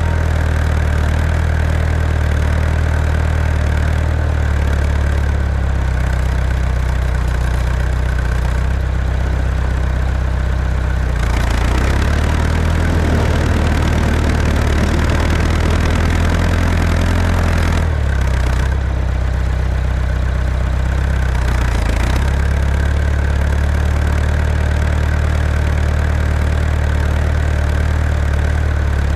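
Tractor engine running steadily under a plowing load, turning louder and rougher for several seconds in the middle before settling back to its steady note.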